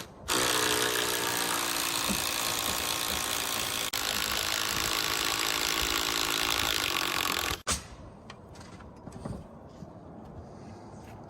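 Power drill-driver driving a long screw into heavy timber, running steadily for about seven seconds with a slight change in pitch about halfway, then stopping.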